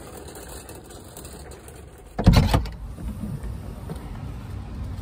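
Steady low rumble of a car, then a sudden loud clunk and short rattle about two seconds in, made while loading supplies at the car's open rear.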